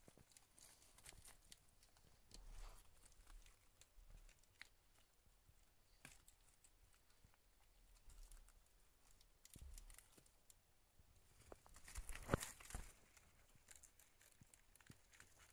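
Faint rustling and crinkling of young hamsters moving over wood shavings and newspaper bedding and tearing at fresh greens, with scattered small clicks and a louder rustle about twelve seconds in.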